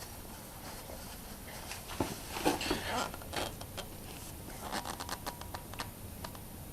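Paper towel scratching and rustling against a spin-on oil filter as it is twisted tight by hand, with a few scattered scrapes and clicks after a quiet first two seconds.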